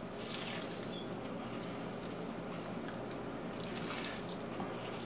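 Faint wet squishing of hands peeling the membrane off a rack of raw wild boar ribs, with soft bursts about half a second in and again about four seconds in. A steady low hum runs underneath.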